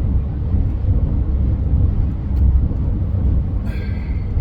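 Steady low rumble of a vehicle in motion, heard from inside the cab, with a brief high squeak near the end.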